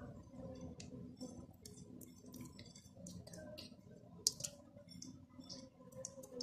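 Chopped green chillies being sprinkled over raw chicken pieces in a steel bowl: scattered light clicks and ticks, with one sharper click about four seconds in.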